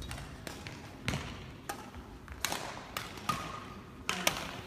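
Badminton rally: a series of sharp racket strikes on the shuttlecock, several in a few seconds at uneven spacing, with players' footfalls on the court floor.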